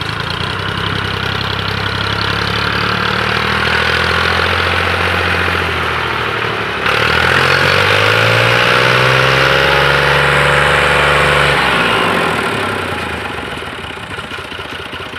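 Diesel tractor engine labouring as it hauls a loaded soil trolley up a sandy slope. The revs climb and the engine grows louder about halfway through, hold for several seconds, then sink and fade near the end as the tractor bogs down and gets stuck.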